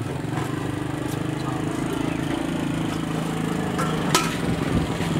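A meat cleaver knocking a few times on a wooden chopping block as food is sliced, the sharpest knock about four seconds in, over a steady low engine drone.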